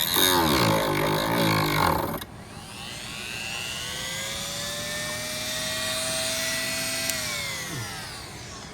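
Handheld rotary tool cutting away plastic at the Bowden cable slot of a car's inside door handle, widening the opening so the cable no longer rubs. It runs loaded and loud for about two seconds, then spins freely at a rising then steady whine, and winds down near the end.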